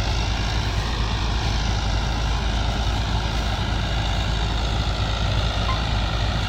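Combine harvester running steadily while cutting heavy paddy in a low gear: a constant low engine drone with faint higher tones drifting slightly in pitch.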